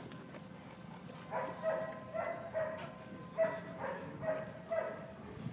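A dog barking over and over, about two barks a second, starting a little over a second in.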